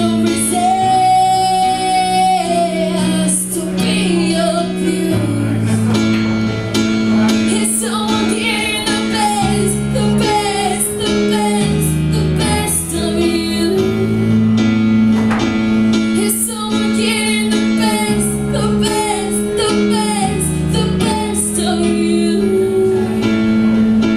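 A song with a female singing voice over plucked guitar and a changing bass line.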